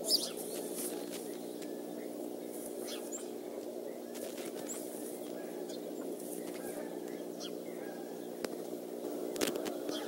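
Small songbirds chirping now and then in the tree around the nest, over a steady low hum. There is a brief thump right at the start and a couple of sharp knocks near the end.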